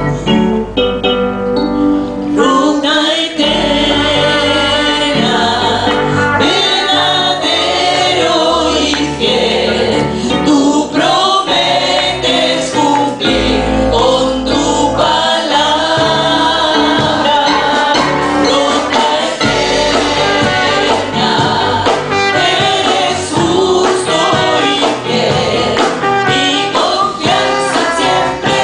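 Live Christian worship song: a group of women singing together into microphones, backed by a band with drums and bass guitar.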